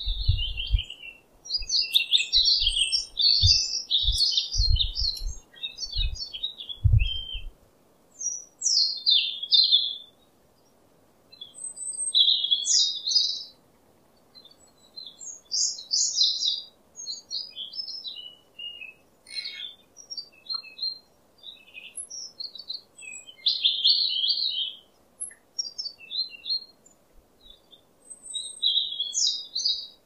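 White-rumped shama (murai batu) singing: high-pitched bursts of quick, varied whistled phrases separated by short pauses, a pancingan (lure) song meant to set a silent caged shama singing. A few low thuds sound under the song in the first seven seconds or so.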